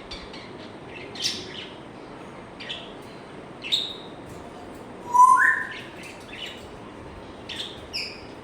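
African grey parrot making a string of short, sharp chirps and clicks. About five seconds in comes its loudest sound, a two-note whistle that steps up in pitch.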